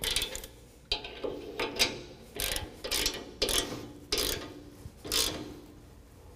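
Hand ratchet with a 24 mm socket, clicking in a series of short bursts, one on each back swing of the handle, as it tightens down a tow hook bolt.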